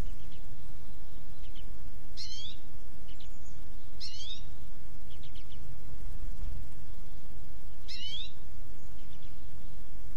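Wild birds calling: three short calls, each a quick curved stroke of notes, a little over 2 s, about 4 s and about 8 s in, with fainter short notes between them. A steady low rumble lies underneath.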